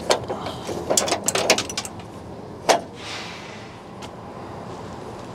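Scrap metal clattering as it is handled: a quick run of metallic clicks and rattles about a second in, then one sharp clack near three seconds.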